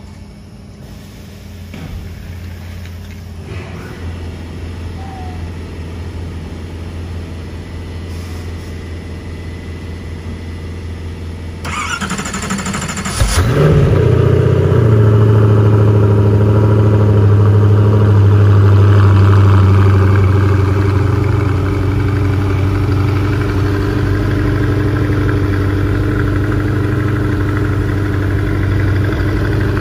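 Koenigsegg Agera RS's twin-turbo V8 being started: after a steady low hum, the starter turns it over about twelve seconds in and the engine catches a second later. It runs at a loud, high idle, then eases down to a steadier idle around twenty seconds in.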